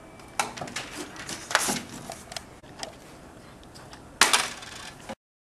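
Small metal washers clicking and clattering against a nail electromagnet and a plastic tray: a few sharp clicks, the loudest about four seconds in, then the sound cuts off suddenly.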